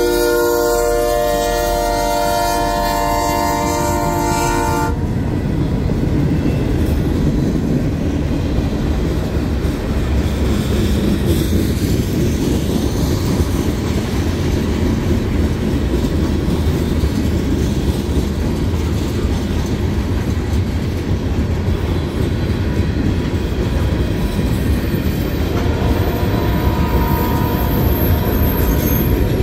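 Lake State Railway freight locomotive horn sounding a steady chord, which cuts off about five seconds in. The train then rolls past with a steady low rumble and wheels clicking over rail joints.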